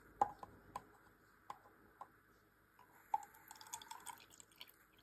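Water draining from a white plastic brush-washing box into a small plastic jar: scattered drops and light plastic ticks, with a short trickling pour about three seconds in.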